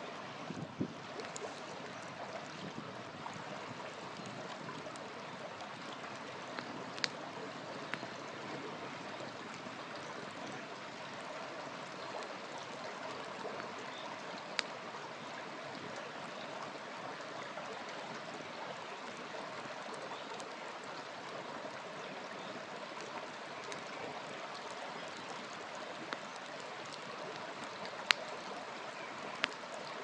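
Wood campfire burning, with about seven sharp pops scattered through it, over a steady rushing hiss of a shallow stream.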